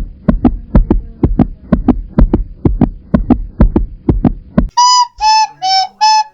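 Background music: a run of low, drum-like thuds, about four a second, then near the end a short tune of separate flute-like notes.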